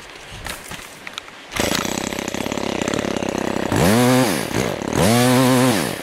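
Two-stroke petrol saw engine coming in about a second and a half in and running at idle, then revved up twice, each time rising to a high whine, holding briefly and dropping back.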